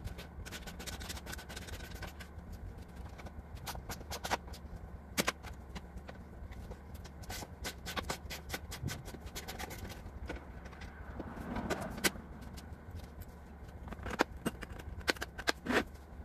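Scattered clicks, taps and light metallic knocks of hand work on an old van's bare front end, bunching up near the end, over a steady low hum.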